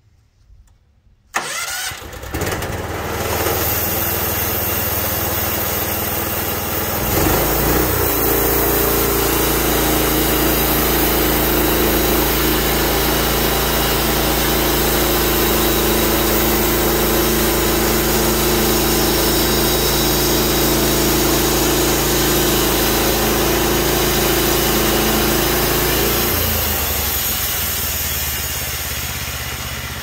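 Predator gasoline engine on a Harbor Freight band sawmill starting up suddenly about a second and a half in and running. About seven seconds in it speeds up to full throttle for the cut through the log and runs steady, then slows back down near the end.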